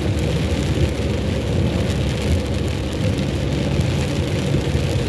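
Heavy rain and the hiss of tyres on a soaked road, heard from inside a moving car, over a steady low rumble of the car's engine and road noise.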